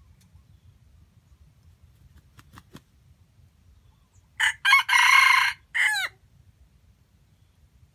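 Red junglefowl cock crowing once: a short, clipped crow of a few broken notes ending in a falling note, preceded by a few faint clucks.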